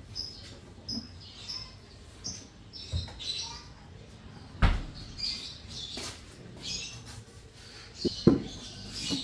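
Small birds chirping in short, high calls throughout. They are punctuated by a few sharp household knocks: a loud one about halfway through and two close together near the end.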